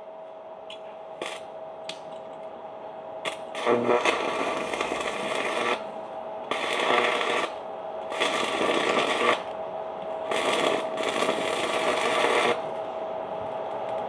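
Electric arc welding: the arc crackles and sizzles in four bursts of a second or two each, with short breaks between them, over a steady hum.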